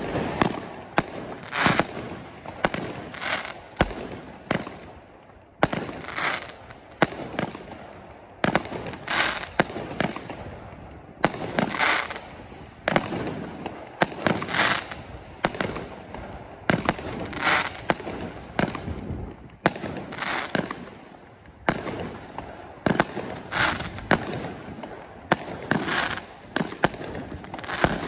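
Weco Mythos 25-shot, 25 mm consumer firework battery firing: a sharp launch shot about once a second, each followed by the burst of its effect.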